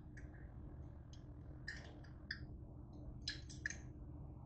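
Faint short scrapes and clicks of a metal spoon against the inside of a mug, scooping out a thick mayonnaise-mustard mixture, about six of them spread over a few seconds.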